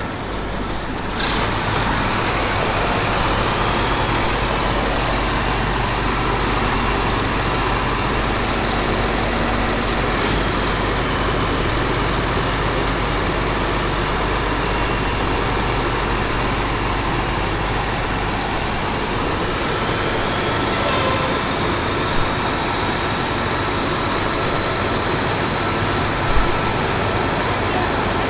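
A large farm machine's diesel engine running steadily, its low drone changing about two-thirds of the way through. A couple of sharp clicks and a brief knock near the end stand out over it.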